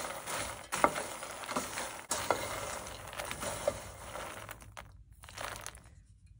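Crisp roasted makhana (puffed lotus seeds) stirred with a wooden spatula in a stainless steel pan: a dry rustling, crunching shuffle with light scrapes and knocks. It dies away about five seconds in.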